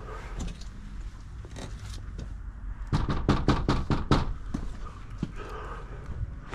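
Footsteps and light knocks, then a quick run of about six sharp knocks, as on a front door, about three seconds in.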